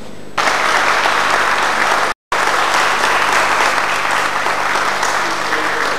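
Audience applauding, dense and steady clapping. It starts abruptly about half a second in and cuts out for a split second just after two seconds, as at an edit.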